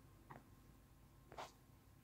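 Near silence: faint room tone with a thin steady high tone, broken by two faint short clicks, the second about a second after the first and a little louder.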